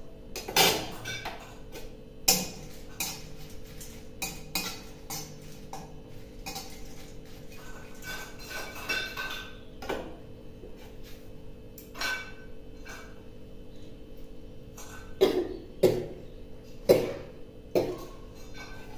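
A utensil stirring dried red chillies frying in a pan, clinking and scraping against the pan again and again over a steady hum. Near the end come a few short coughs, brought on by the fumes of the frying chillies.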